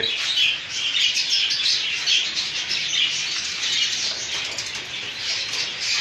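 Many caged budgerigars and cockatiels chirping and chattering at once: a dense, continuous chorus of short, high calls.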